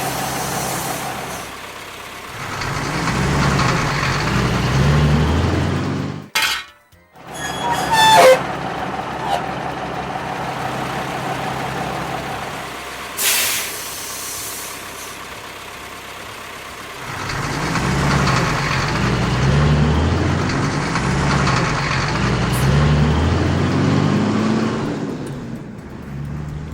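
Cartoon vehicle sound effects: a low engine-like rumble that rises and falls in steps, with a short hiss about thirteen seconds in and a brief break about six seconds in.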